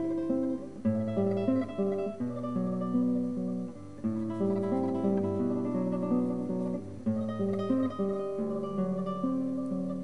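Background music: solo acoustic guitar playing plucked melody notes and chords.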